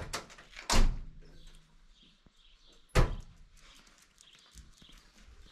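Two loud thuds about two seconds apart, from the cab door of a Scania truck being shut.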